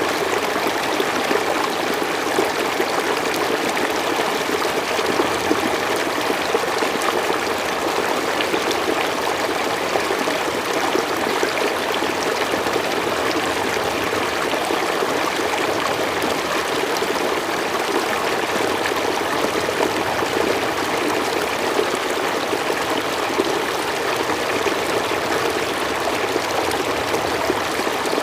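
River water flowing steadily over stones, a constant rushing babble with no breaks.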